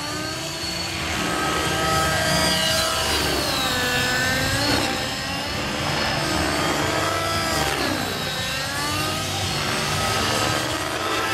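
Outrage Velocity 50 N2 nitro RC helicopter flying aerobatics: its YS glow engine and rotor blades run as one pitched whine that sweeps up and down every few seconds as the helicopter manoeuvres.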